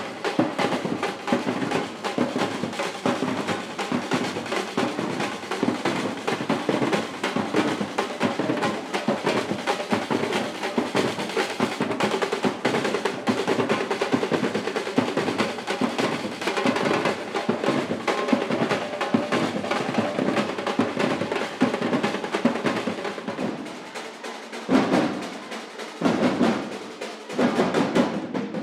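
Batucada samba percussion ensemble playing a fast, driving rhythm on drums, with snare drums rolling over the beat. The playing breaks off briefly near the end, then comes back in.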